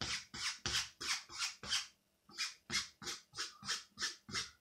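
Pencil strokes scratching across the drawing sheet in quick repeated flicks, about three a second, with a brief pause about two seconds in, as strands of hair are sketched.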